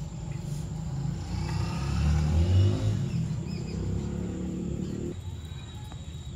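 A motor vehicle's engine passing by: a low hum that grows louder to a peak about two and a half seconds in, then fades away.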